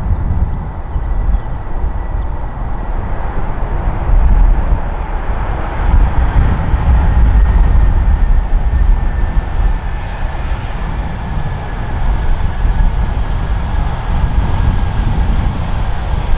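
Icelandair Boeing 737 MAX rolling out on the runway after landing: a loud, steady jet-engine rumble with a thin whine that slowly falls in pitch as the jet slows.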